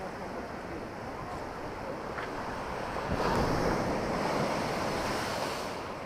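Storm waves surging in and washing over a stone seafront embankment, with wind buffeting the microphone. The surf grows louder about three seconds in as a bigger wave comes through.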